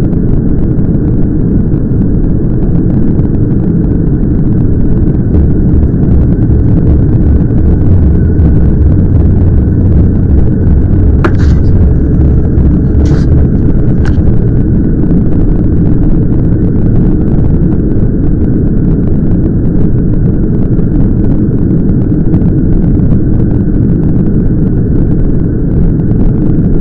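Car on the move: a steady, loud, low rumble of road and wind noise, with a few short ticks about halfway through.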